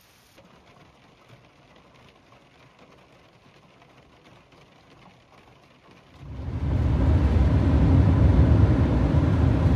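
A vehicle engine running, a loud, steady low rumble that comes in suddenly about six seconds in after a faint, quiet stretch.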